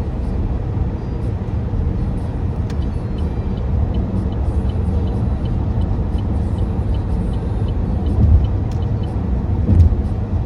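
Steady road and engine rumble heard from inside a moving car at highway speed, with two louder bumps near the end.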